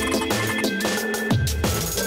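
Electronic background music with a fast beat and a deep bass line.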